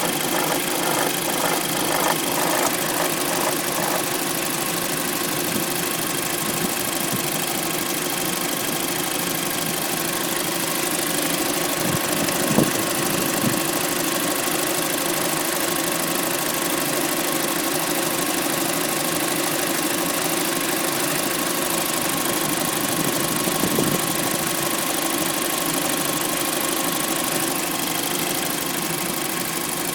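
Audi A3 2.0 FSI four-cylinder engine idling after a cold start, with a fast rhythmic rattle that is plain for the first few seconds and then settles into a steadier idle. The uploader suspects the tensioner for this cold-start noise.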